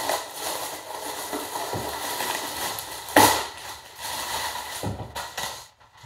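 Clear plastic packaging bag crinkling and rustling as it is torn open and a folded pair of raw denim jeans is pulled out, with one sharp, louder crackle about three seconds in.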